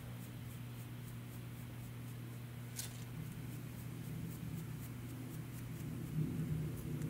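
Soft dry paintbrush lightly sweeping loose gold leaf flakes off a painted ceramic piece, a faint scratchy brushing over a steady low hum, with one small tick about three seconds in.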